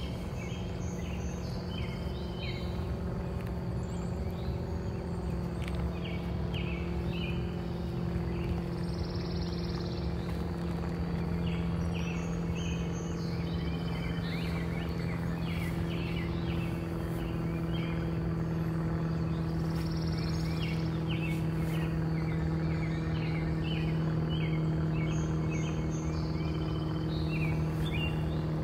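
Small birds chirping in short bursts of quick notes, again and again, over a steady low hum that grows slightly louder toward the end.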